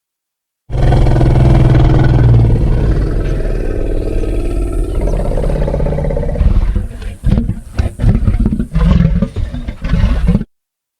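Giant-monster roar sound effect: a long, loud, deep roar begins about a second in, then breaks into choppy, stuttering growls for its last few seconds before cutting off suddenly.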